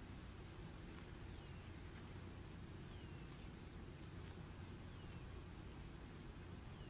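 Faint steady low hum with a short, falling chirp every second or two, a small bird calling.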